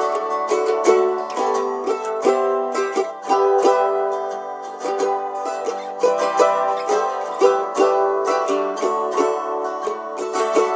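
Acoustic mandolin played solo: a steady stream of picked notes and chords.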